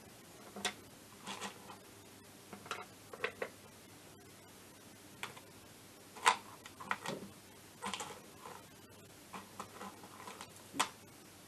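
Sparse light clicks and knocks of tools and small metal parts being handled on a workbench, irregular, with one sharper knock about six seconds in.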